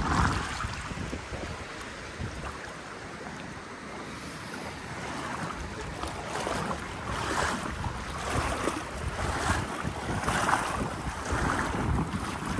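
Wind buffeting the microphone over the rush of river water, with gusts coming through about once a second in the second half.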